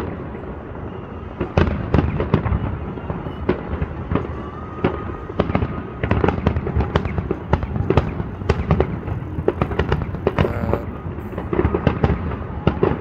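Fireworks display going off: a dense run of bangs and crackles, several a second. The bangs are a little sparser in the first second or so, then come thick and fast to the end.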